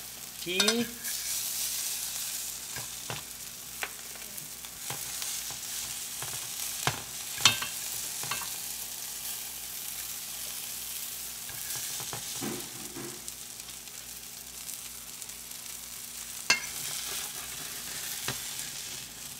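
Floured vermilion snapper fillets sizzling in hot oil in a frying pan, a steady hiss, with a few sharp clacks and taps of a fork against the pan and plate as the pieces are lifted out.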